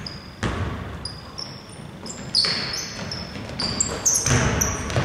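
A basketball bouncing on a hardwood court in a large empty hall, three echoing bounces about two seconds apart, with many short high squeaks of sneakers on the floor around them.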